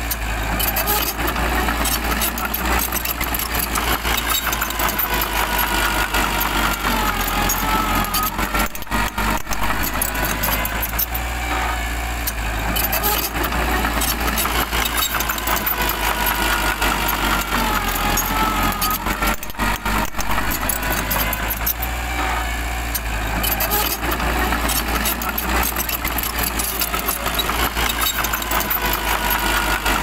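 Small crawler bulldozer's diesel engine running steadily as it pushes soil, with a wavering higher-pitched whine over the deep engine note.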